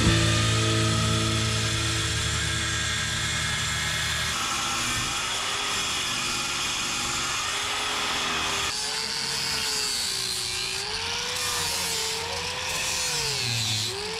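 An electric power tool working wood. Its motor's pitch wavers up and down repeatedly in the second half as it is fed through the wood.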